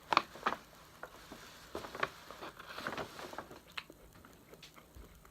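A fork cutting into a slice of crumb pie: two sharp taps near the start, then a couple of seconds of scraping and crumbly rustling, followed by a few faint clicks of eating.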